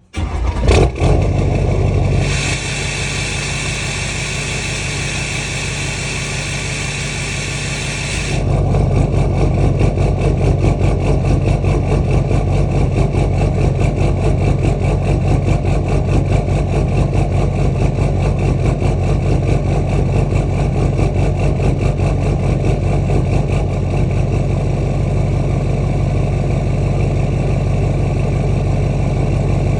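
LMM Duramax 6.6 L V8 turbodiesel with a straight-piped exhaust idling roughly right after sitting overnight, the uneven idle that shows up after the truck sits and clears within the first minute. About eight seconds in a high hiss drops away and the idle turns louder and more uneven.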